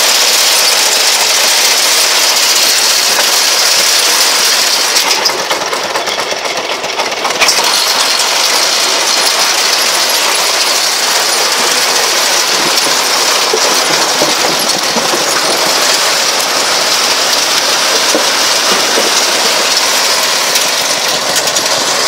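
A tractor-drawn self-loading potato harvester running, with its chain conveyors and elevator making a steady mechanical clatter. The sound drops briefly about five seconds in and comes back abruptly after about two seconds.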